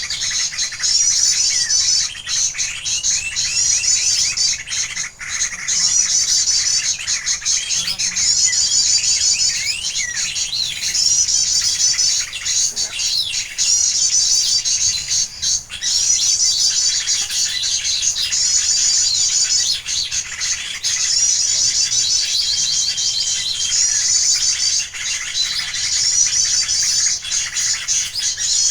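Birds chirping: a high, fast trilling phrase repeats over and over in bursts of about one to two seconds, with scattered lower chirps and calls between.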